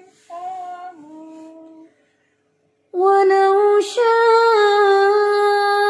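Quranic recitation in the slow, melodic tarteel style. A quieter chanted phrase ends about two seconds in. After a short silence, the recitation of 'wa law sha'a' begins louder, holding one long steady note.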